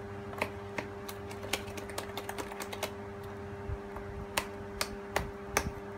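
A plastic spoon stirring thick foam slime in a clear plastic bowl, clicking and tapping against the bowl in an irregular run of sharp clicks. A steady low hum runs underneath.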